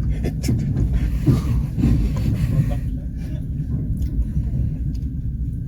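Passenger train running, heard from inside the carriage: a steady low rumble of the wheels on the rails, with a few scattered knocks in the first half.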